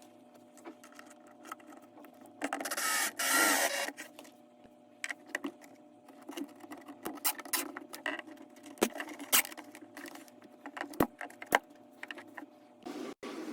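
Wood and tools being handled: scattered clicks and knocks, with a rubbing, scraping stretch lasting about a second and a half, starting about two and a half seconds in.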